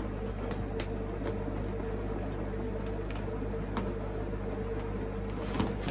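Steady mechanical hum with a thin constant tone running through it, and a few faint clicks.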